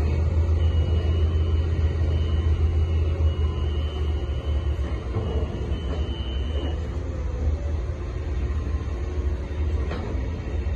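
Tracked excavator's diesel engine running under load as it swings its arm and digs, a steady low rumble. A faint high whine sounds over it for about the first six seconds.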